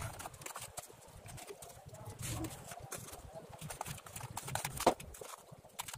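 Irregular scraping and tapping as a hand tool packs and tamps damp cement-and-sand mortar around a plastic bucket in a plastic basin, with one sharper knock near the end.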